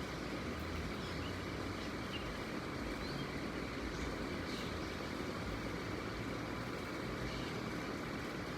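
Steady, even rumble of an Airbus A340-600's four Rolls-Royce Trent 500 jet engines as the airliner flies overhead.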